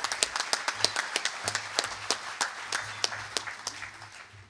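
Audience applauding, with many hands clapping. The clapping thins and fades away near the end.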